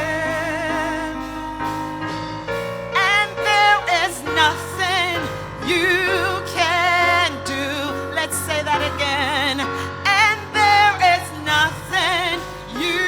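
Worship song: a solo voice sings long notes with strong vibrato over sustained accompaniment chords.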